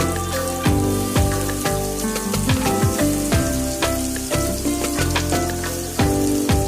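Background music with held notes, a bass line and a steady drum beat, over food sizzling in a frying pan.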